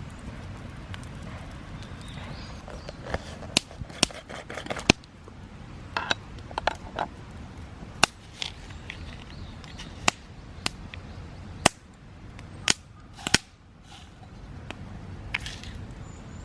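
Wood campfire crackling, with irregular sharp loud pops from the burning wood over a low steady background.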